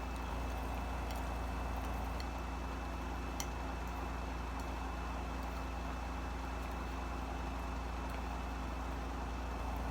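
A steady low hum with a thin high tone, broken by a few faint short clicks.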